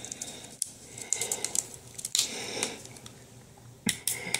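Plastic water bottle crackling and clicking as it is handled, with a sharp group of clicks near the end as its screw cap is twisted open.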